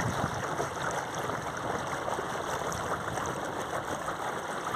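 Water rushing and splashing steadily along the hull of an inflatable dinghy under way on an electric trolling motor.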